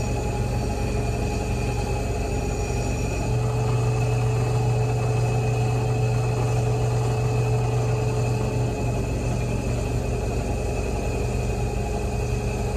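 Drill press motor running steadily with a wire wheel brush spinning in its chuck, a low hum that gets louder about three seconds in. The wheel is used to clean up boiled steel parts of the rifle.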